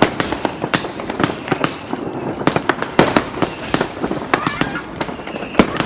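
New Year's fireworks and firecrackers going off all around, a dense, irregular run of sharp bangs and cracks, several a second, over a steady crackling hiss.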